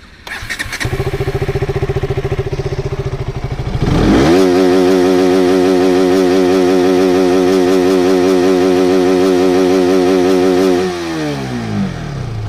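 KTM RC 200 motorcycle's single-cylinder engine running at a steady low speed, then revved up quickly about four seconds in and held at full RPM for around seven seconds, with a slight wavering pitch, before dropping back near the end.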